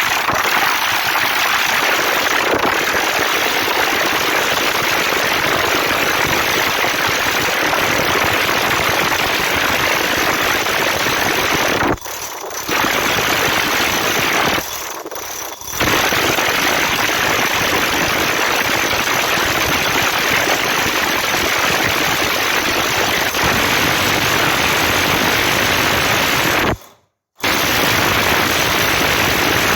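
Electric drill running a 65 mm concrete hole saw, cutting into a masonry wall with a loud, steady grinding rattle. It eases off briefly twice partway through, stops for a moment near the end, then starts again.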